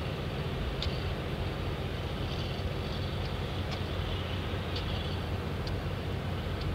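Steady low rumble of distant heavy machinery, with a few faint short high ticks scattered through it.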